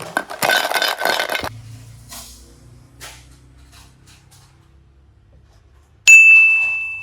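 A clinking clatter for about a second and a half that fades away, then near the end a sudden bright ding that holds one high ringing tone.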